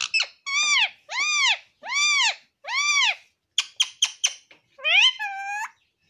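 Alexandrine parakeet (pahadi tota) calling. It gives four drawn-out squawks that rise and fall in pitch, about two-thirds of a second apart, then a quick stutter of short chirps and one longer call near the end.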